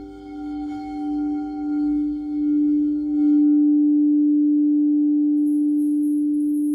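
Crystal singing bowls sounding several steady tones together, the lowest one strongest. The sound swells in slow waves for about three seconds, then holds steady.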